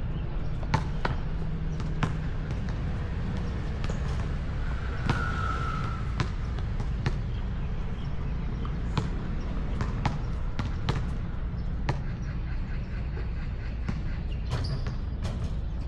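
A basketball bouncing on a hard court surface: single sharp bounces at uneven intervals, mostly a second or two apart, over a steady low rumble.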